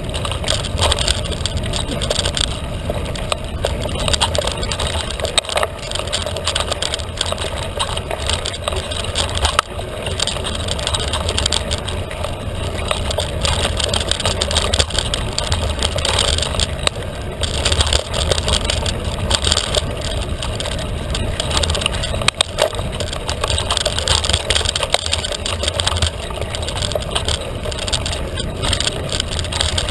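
Felt carbon 29er mountain bike ridden at speed over a dirt trail: steady tyre and trail noise over a low rumble, with constant small clicks and rattles from the bike.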